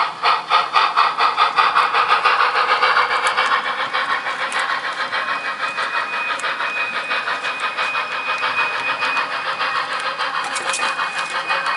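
Sound-equipped model steam locomotive chuffing as it pulls away, the beats quickening. A thin, steady high tone joins about halfway through.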